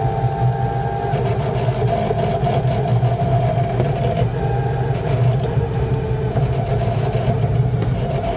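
Electric Aixam Mega Truck's automatic gearbox and drivetrain coasting in freewheel, heard inside the cab: a steady low hum with a whine over it and a clattering, grinding noise through the middle. The owner calls it scary and suspects a gearbox fault, though he allows it might be normal when coasting.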